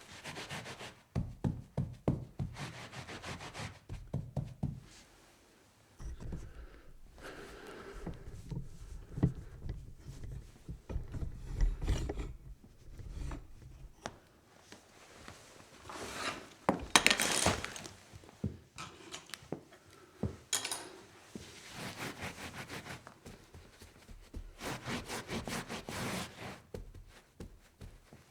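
Wiping up a spill: runs of quick scrubbing and rubbing strokes on a hard surface, stopping and starting irregularly, with a few knocks.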